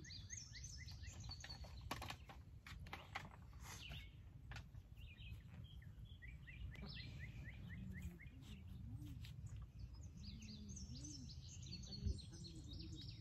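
Small birds chirping in quick repeated series of short notes, over a low steady rumble. A few faint clicks come about two to five seconds in.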